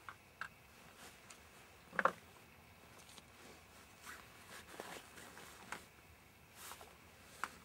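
Faint rustling and scattered light knocks, with one louder knock about two seconds in.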